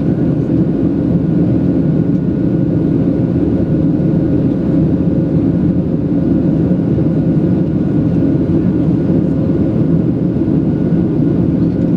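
Steady loud cabin noise of a Boeing 737-700 during the climb after takeoff. Its CFM56-7B turbofan engines make a constant deep rumble with a couple of faint steady whining tones over it.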